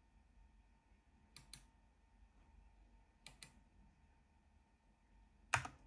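Three separate keystrokes on a mechanical keyboard, about two seconds apart, each a quick double click of key press and release. The last is the loudest.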